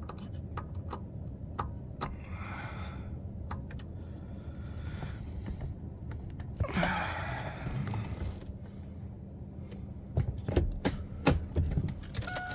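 Metal hand tools clicking and clinking irregularly as a ratchet and Torx bits are handled, with two longer rustling scrapes about two seconds in and about seven seconds in.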